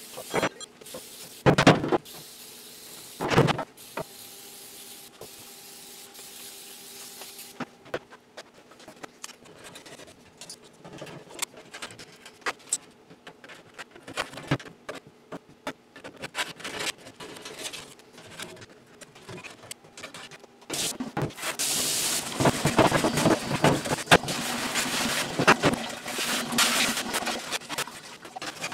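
Steel stove parts being handled: two loud clanks near the start, then scattered light knocks and scrapes. About three quarters through, a louder, dense stretch of scrubbing and running water at a metal utility sink.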